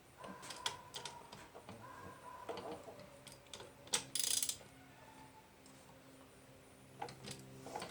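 Irregular clicks and light taps of hand tools and small parts being handled while parts are fitted to a pit bike, with a short rasping hiss about four seconds in.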